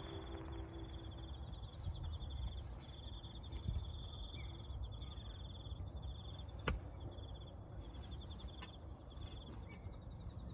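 Faint crickets chirping in repeated high-pitched pulsed trills over a low background hum, with a single sharp click about two-thirds of the way through.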